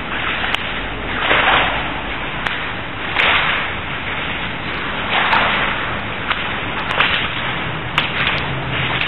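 Someone wading through shallow floodwater: a swishing splash with each stride, about every two seconds, over a steady hiss, with a few sharp clicks.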